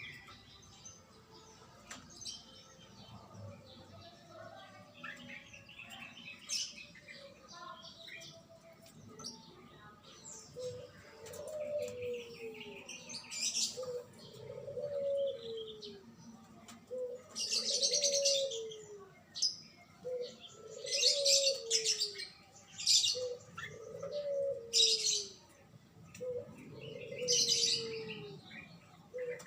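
Birds calling: a short, low, falling note repeats about every one and a half seconds from about ten seconds in, over high, harsh chirps that grow louder and more frequent in the second half.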